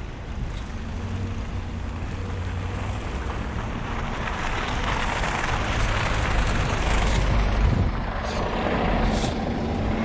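A city bus passing close by in traffic, its engine running with a steady low hum and its tyres hissing through wet slush; the hiss swells to its loudest a few seconds in and then eases off.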